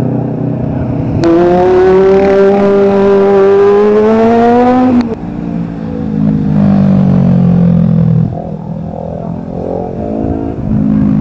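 Traffic passing: vehicle engines going by, with one engine accelerating in a steadily rising pitch from about a second in until it cuts off suddenly near the middle, then quieter engine drone.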